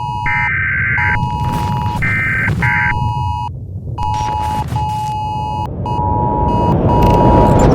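Electronic alarm beeps in a stuttering, uneven pattern, switching between a lower and a higher tone, over a low rumble that grows steadily louder from about six seconds in.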